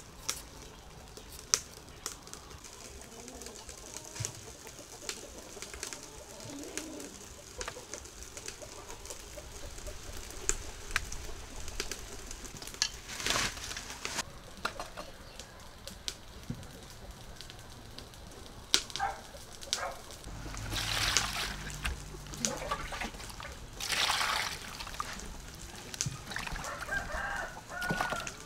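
Chickens clucking and a rooster crowing in the background. At first sharp ticks of a hand peeler scraping a carrot; from about two-thirds through, water splashing in bursts as hands wash greens and a carrot in a metal bowl.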